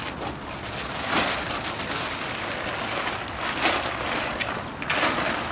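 Plastic packing wrap crinkling and rustling as it is handled and pulled off a new motorcycle, with a few louder surges of crackle.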